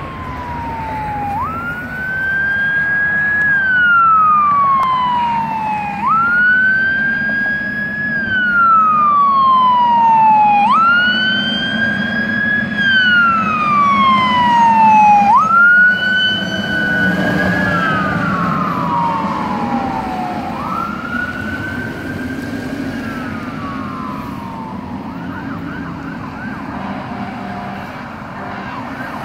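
Fire engine siren on wail, each cycle sweeping up quickly, holding, then falling slowly, about every five seconds, over the rumble of the truck's engine, loudest about halfway through as it passes. Near the end the wail fades and a fainter, faster warbling siren is heard.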